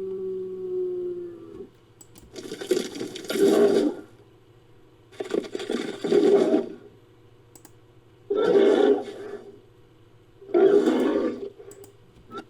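Designed creature vocal sound effects made from bison, buffalo and bull recordings. A low pitched moan fades out in the first second or two, then come four rough, breathy roaring calls, each one to two seconds long, about every two and a half to three seconds.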